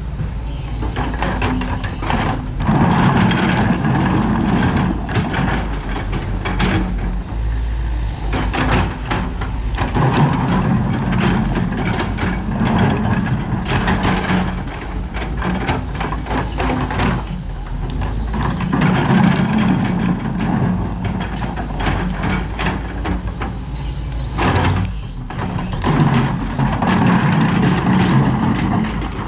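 Doosan DX225LCA excavator's diesel engine working under load, rising in surges about every eight seconds as it runs through its dig, swing and dump cycles to load a dump truck. Short knocks and clanks sound throughout.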